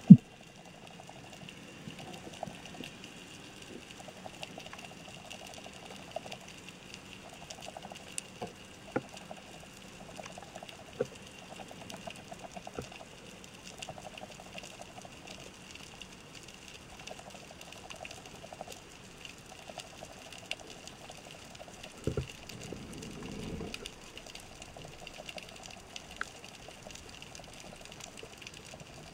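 Underwater sound through a diving camera's housing: scattered sharp clicks and crackles over a faint steady high tone and soft repeating pulses, with one louder low rushing burst about two-thirds of the way through.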